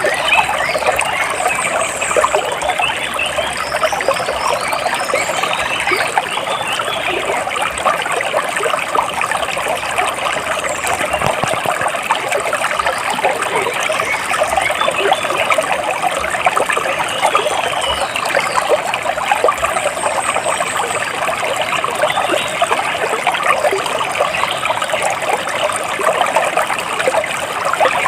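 Water splashing and trickling steadily, as over the rocks of a small stream, with a few faint high bird chirps.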